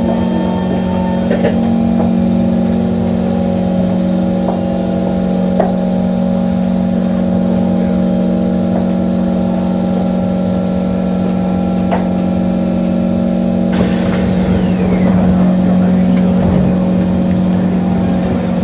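Inside a Singapore MRT train carriage by the doors: the train running with a steady low hum and several steady tones as it comes into a station. About fourteen seconds in, a sudden hiss starts with a whine that falls in pitch as the doors open.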